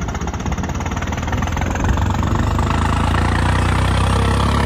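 John Deere 5210 tractor's three-cylinder diesel engine running under way, heard from the driver's seat, getting louder about two seconds in.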